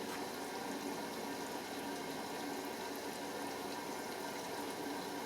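Pro Action A105QW washing machine filling with water at the start of a synthetics 60°C wash: a steady rush of water flowing into the drum.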